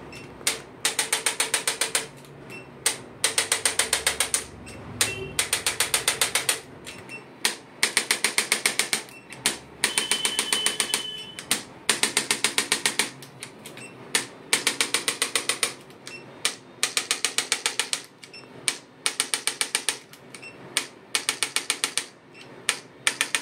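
Handheld electric percussion adjusting instrument pressed on the lower back, firing rapid taps at about fifteen a second in bursts of about a second with short pauses between.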